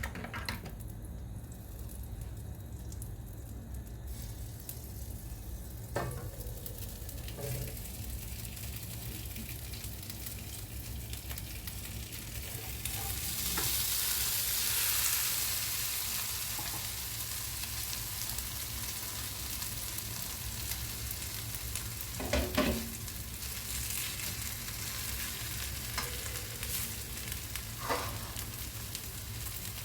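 Grated-potato hash brown sizzling as it fries in butter in a pan, the sizzle swelling louder for a few seconds around the middle. A few light knocks come through it, the loudest about two-thirds of the way in.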